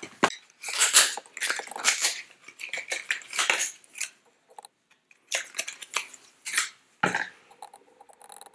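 Plastic wrapping crinkling and rustling in the hands in a run of short, irregular bursts, as it is pulled off a green rubber dog toothbrush stick.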